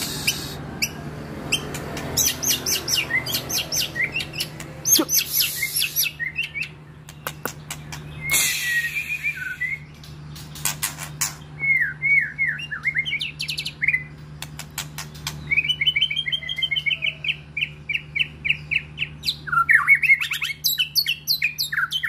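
White-rumped shama (murai batu) singing a varied song: runs of sharp clicking chips, whistled phrases that glide up and down, and a harsh rasping burst about eight seconds in. A steady low hum runs underneath.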